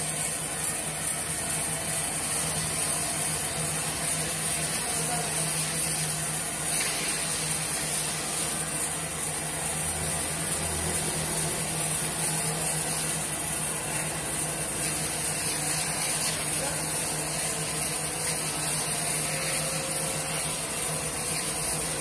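Multi-blade sawmill machine running steadily as a squared timber block is fed through it on rails and sawn into boards: a constant low hum under an even hiss, with no change in level.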